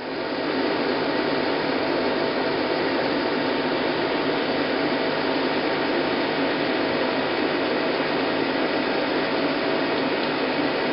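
Atrump 3VK CNC vertical mill spindle on its inverter DC drive, coming up to speed within about half a second and then running steadily at 3000 RPM.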